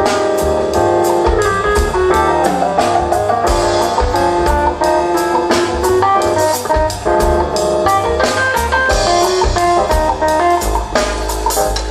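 A band playing music: guitar lines over bass notes and a steady drum beat.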